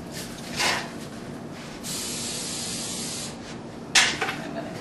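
Aerosol cooking spray hissing from a can as a cookie sheet is greased lightly: a short puff about half a second in, then a steady spray of about a second and a half, and another short burst near the end.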